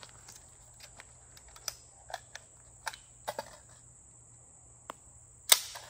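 AR pistol being handled to clear a malfunction: a run of small, irregular metallic clicks from the action, then one much louder sharp clack with a short ring near the end.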